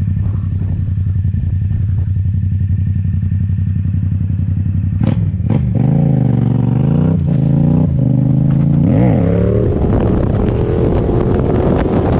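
Yamaha MT-07's 689 cc parallel-twin engine breathing through a full titanium Akrapovič exhaust. It idles steadily, gives two sharp cracks about five seconds in, then is revved several times, its pitch rising and falling with each blip of the throttle.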